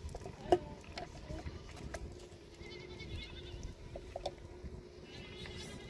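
Livestock bleating: wavering, trembling calls, with a few sharp clicks, the loudest about half a second in.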